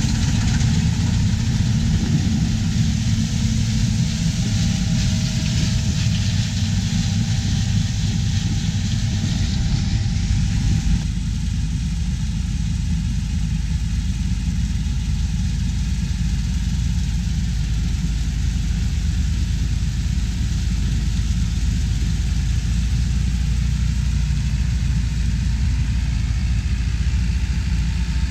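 Harvest machinery engine running steadily, a combine or tractor at work. About eleven seconds in the sound changes abruptly and becomes deeper and more even.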